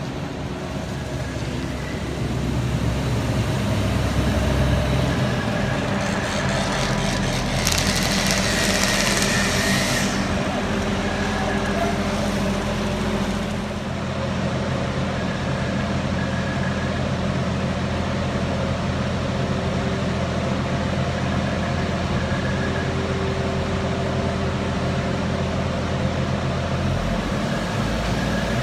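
PESA diesel railcar's engines running with a steady low drone as the train comes in and stands at the platform. A loud burst of hiss lasts about two seconds, starting about eight seconds in.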